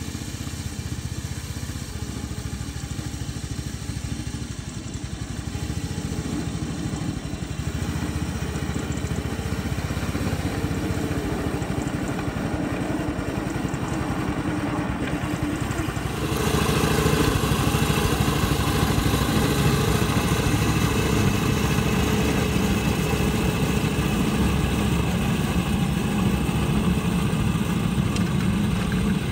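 Small petrol engine of a 7¼-inch gauge 0-6-0 petrol locomotive running steadily as the loco moves along the track. It gets louder about halfway through and stays so.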